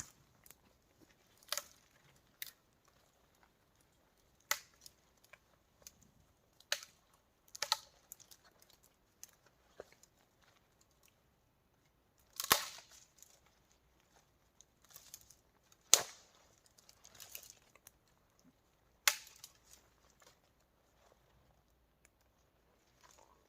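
Dry wood snapping and crackling: a dozen or so sharp, irregular cracks a second or more apart, the loudest about halfway through, as a campfire is being lit.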